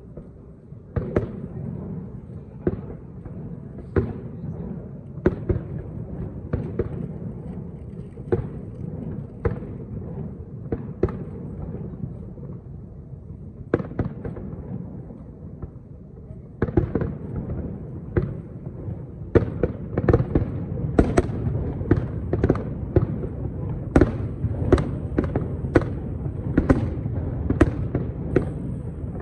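Aerial firework shells bursting, a string of sharp bangs over a low rumble. The bangs come closer together in the second half.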